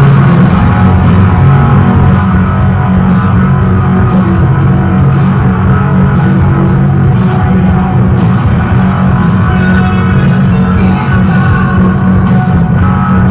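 Rock song with a drum kit keeping a steady beat, and a hollow-body electric guitar played along over it.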